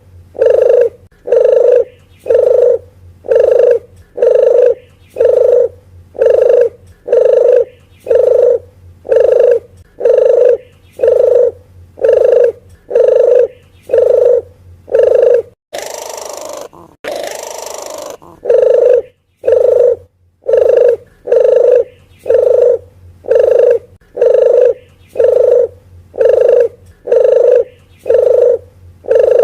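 Recorded puter geni dove call played as a trapping lure: a short, low coo repeated steadily about three times every two seconds. About halfway through, the coos break off for a few seconds of hiss, then resume.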